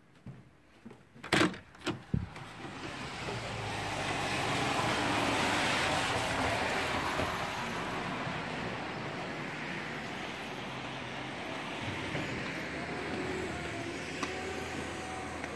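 A few sharp clicks and knocks as a glass balcony door's lever handle and latch are worked and the door opens, then a steady outdoor hiss of traffic on a wet road that swells over several seconds and settles.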